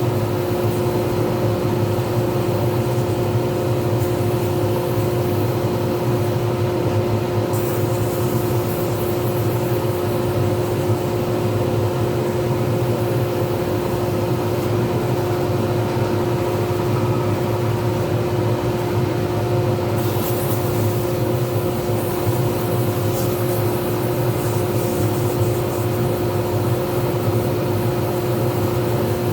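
Pen-turning lathe running steadily with a constant hum and whine. A higher hiss changes about a quarter of the way in and again from about two-thirds through.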